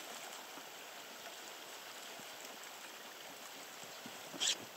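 River water running steadily, with a sharp splash near the end from a hooked fish at the side of the raft as the angler reaches down to land it.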